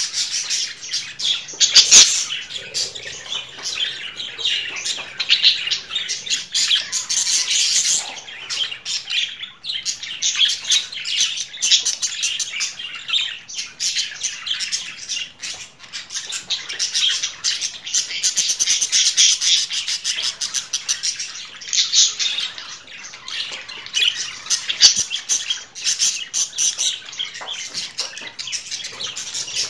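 Budgerigars chattering and warbling continuously in a dense stream of chirps and squawks, with a sharp click about two seconds in.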